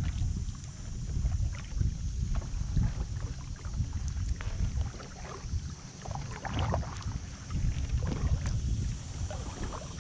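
Double-bladed kayak paddle strokes: the blades dip and splash in the water and drip between strokes, with wind rumbling on the microphone.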